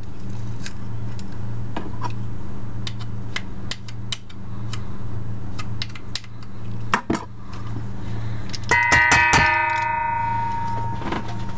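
Stainless steel mixing bowl knocked several times in quick succession by a metal utensil about three-quarters of the way in, ringing like a bell and fading over about a second and a half. Before that, scattered small clicks and taps of kitchen utensils over a steady low hum.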